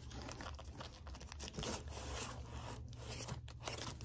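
Comic books in plastic bags with backing boards being flipped through by hand in a cardboard comic box: a quick irregular run of crinkling plastic rustles and soft scrapes.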